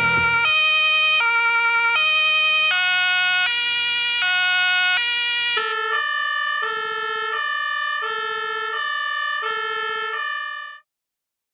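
German two-tone emergency warning signal ("tatü-tata") of a Mercedes Sprinter fire command vehicle, from its Typ 624 tone-sequence unit and GM2298 Martinhorn: two pitches alternate about every 0.7 s. About halfway the pair of tones changes to a lower-pitched pair. The signal cuts off suddenly near the end.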